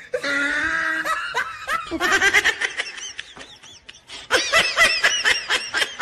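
Laughter: a drawn-out vocal sound for about a second, then runs of quick, rhythmic laughter, with the loudest run starting about four seconds in.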